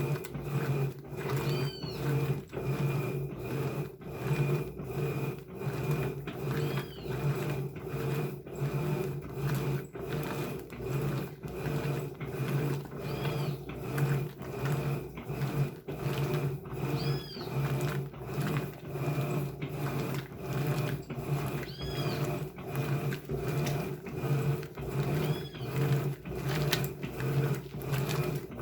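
Electrolux LBU15 15 kg top-load washing machine agitating a load of rugs in turbo agitation, a steady low hum with a swishing pulse about twice a second as the agitator works back and forth. A few short high squeaks come through now and then.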